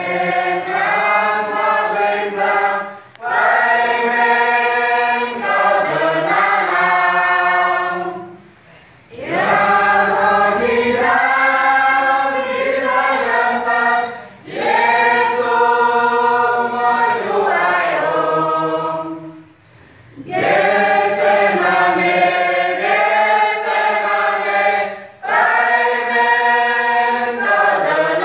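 Mixed choir of women and men singing a hymn unaccompanied, in phrases of about five seconds with a short break for breath between each.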